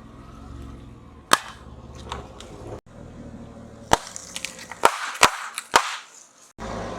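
Sharp cracks and pops of hard, crunchy objects breaking under a car tyre, over a low rumble: one crack about a second in, then a quick cluster of several between about four and six seconds.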